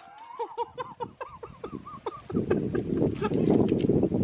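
A bird calling in a quick series of short pitched notes, about four a second, for the first two seconds. Then a low, dense rumble of wind on the microphone takes over.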